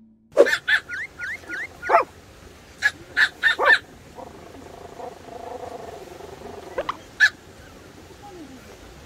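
Pomeranian barking in short, sharp yaps: a quick run in the first second, more barks from about two to four seconds in, and a couple more near seven seconds. This is excited barking at arriving visitors.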